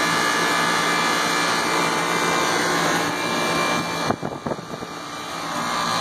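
Tempstar central air conditioner condensing unit running loud, its compressor and condenser fan giving a steady hum and whir just after start-up on a newly replaced contactor. About four seconds in the sound briefly dulls, with a few bumps of handling noise, then comes back.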